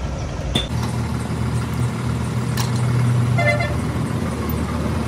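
A motor vehicle's engine running close by with a low steady hum that grows louder for a few seconds, a short horn toot about three and a half seconds in, and a couple of sharp clicks.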